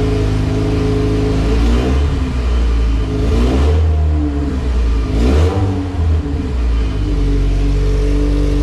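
Honda B18 LS/VTEC four-cylinder running on an open header, revved twice in the middle and then settling back to a steady idle. Its large cams leave little vacuum, so it struggles to hold a smooth idle while the idle is being tuned.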